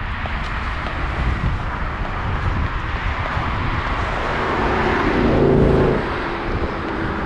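Motor vehicle passing on the road: its engine note swells to its loudest about five and a half seconds in, then drops away. Steady wind rumble on the microphone runs underneath.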